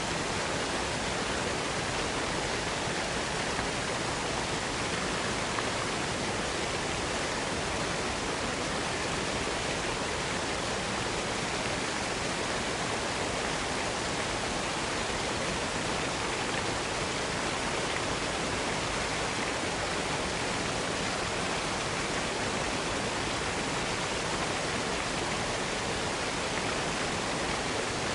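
Waterfall rushing: a steady, even roar of falling water with no changes or separate events.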